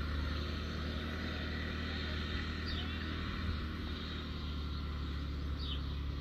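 Farm tractor engine running steadily as the tractor drives, a low even hum.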